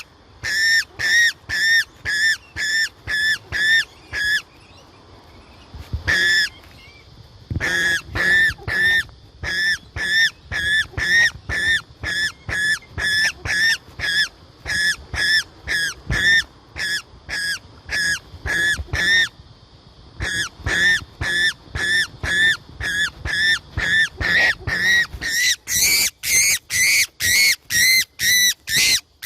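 A bird calling over and over in short, harsh squawks, about two or three a second, with a pause about four seconds in and another near seven seconds, then calling without a break and a little faster toward the end.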